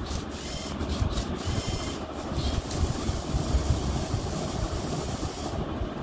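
LEGO Mindstorms EV3 Rubik's-cube-solving robot running: a steady whirr of its motors and mechanism turning the cube, with clicks in the first few seconds, as it completes the solve.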